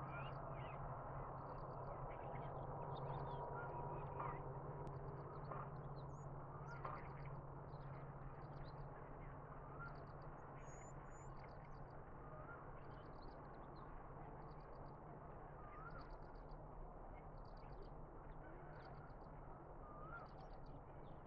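Birds calling: a stream of short, high chirps repeating every half second to a second, with a softer rising chirp every second or two, over a steady low hum.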